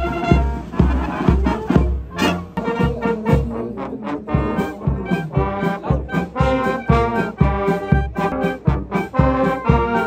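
Police marching band playing, with brass and clarinets over a steady bass drum beat.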